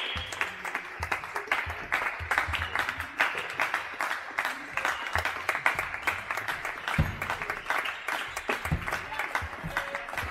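Spectators clapping in a sports hall, with scattered low thuds of a handball bouncing on the hall floor.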